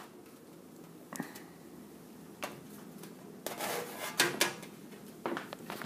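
Steel side panel of a mid-tower PC case being pulled off and handled: scattered knocks and light rattles of thin metal, several in quick succession after about three and a half seconds.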